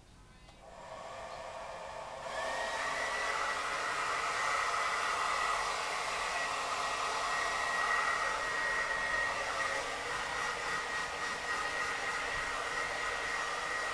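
Handheld hair dryer running as she dries her curly hair, a steady rush of air with a high whine through it. It comes up gradually over the first seconds and gets louder about two seconds in.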